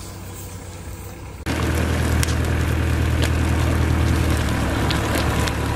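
A heavy vehicle's engine idling in a low steady hum, jumping abruptly louder about one and a half seconds in, with scattered sharp pops and crackles from a car burning.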